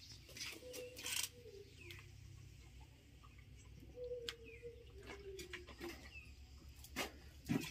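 A bird's low cooing calls, repeated several times, each holding one pitch and sliding slightly, among a few sharp clicks.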